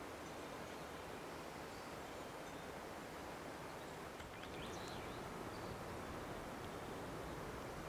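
Steady rushing of a mountain river, with a few faint high bird chirps about halfway through; the rush grows slightly louder near the end.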